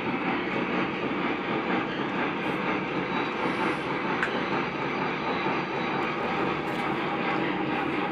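Lionel O-gauge model trains running on the layout's track, a steady rumble of wheels and motors with faint clicks.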